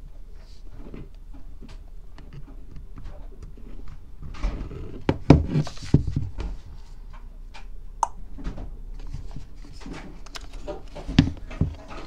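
Handling sounds of an Iridium GO satellite unit and its charging cable: plugging in, picking up and setting down on the table, giving scattered clicks and knocks. The loudest knocks come about five seconds in and again near the end.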